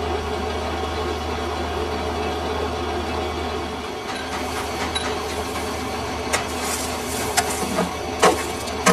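Lathe running with a steady low motor hum. About halfway through a hiss joins it, along with a series of sharp clicks and knocks, the loudest near the end.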